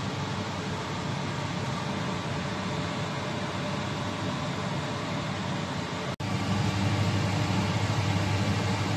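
Steady mechanical whirring hum, broken by a brief dropout about six seconds in, after which the hum is louder and deeper.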